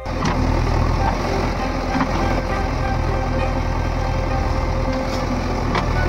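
JCB 3DX Eco backhoe loader's diesel engine running steadily, with a few sharp knocks about two seconds in and near the end.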